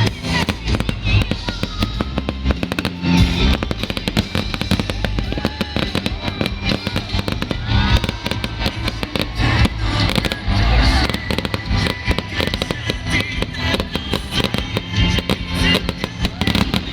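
Fireworks display going off in a dense run of bangs and crackles, with music playing underneath.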